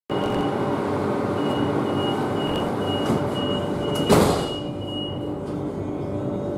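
Door-closing warning on a Madrid Metro 8000-series train: a high beep repeating a little under three times a second while the sliding doors close, shutting with a thud about four seconds in. The beeping stops soon after, leaving the steady hum of the stationary train.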